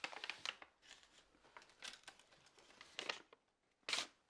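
Faint, scattered rustling and crinkling of something being handled, in a few short bursts, the sharpest near the end.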